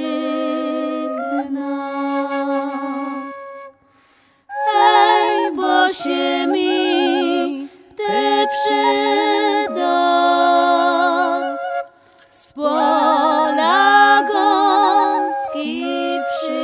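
Two women singing a Podhale highland lullaby in harmony, their voices wavering with vibrato. The phrases are broken by short breath pauses about 4, 8 and 12 seconds in.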